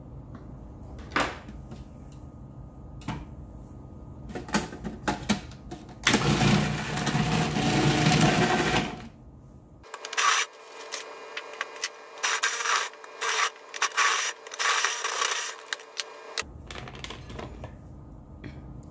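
Food processor with a shredding disc running through a block of cheese, with clicks and knocks from its plastic bowl and feed-tube parts. The motor and shredding are loudest for about three seconds midway, followed by a string of short bursts.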